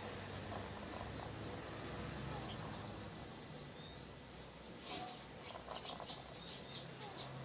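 High-pitched bird chirping: a fast, even run of short chirps at first, then louder, sharper single chirps from about halfway in.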